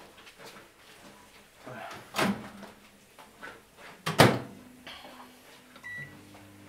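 Two loud bangs about two seconds apart, like a kitchen cupboard door or drawer being slammed shut. Near the end a short high electronic beep sounds and a steady low electric hum starts up.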